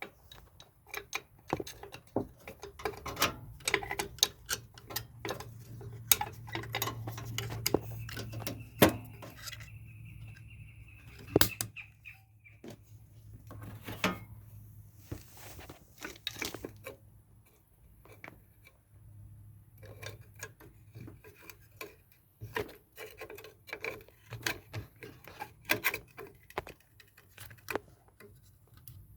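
Repeated clinks, taps and knocks of metal and plastic washer parts being handled as the drive motor is fitted back into a Roper washer, over a steady low hum.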